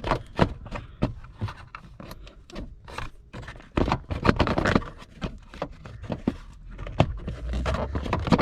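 Hand tool and car interior parts being worked under a dashboard: irregular clicks, knocks and scrapes as a 7mm screw is backed out, with a longer scraping stretch about four seconds in.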